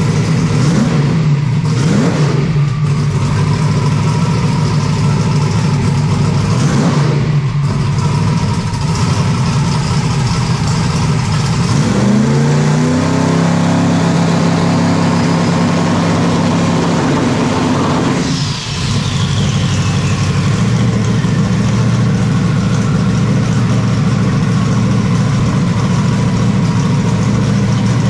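Twin-turbocharged V8 race engine idling, blipped twice in the first eight seconds, then revved up about twelve seconds in and held higher for several seconds before dropping back to idle with a high falling whistle.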